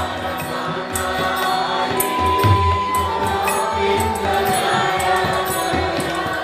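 Kirtan: a group chanting a mantra together over a steady held drone, with a regular beat of low thumps and bright clicking percussion.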